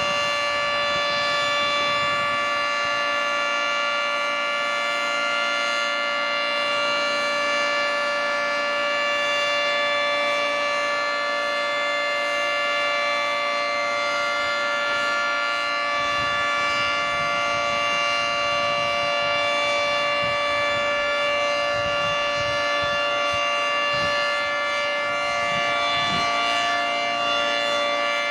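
Federal Signal 3T22 three-tone outdoor warning siren sounding a full alert: a loud, steady chord of several tones held at one pitch with no wail up or down.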